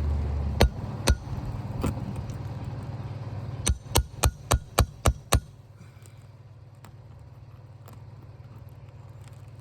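Hammer striking a nail puller worked under an asphalt shingle to pull out a roofing nail. There are three separate taps, then a quick run of about six strikes, roughly three a second.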